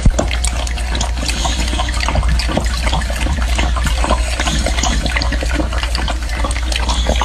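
A boxer dog lapping milk from a metal bowl with its face down in it: a quick, irregular run of wet smacks and splashes.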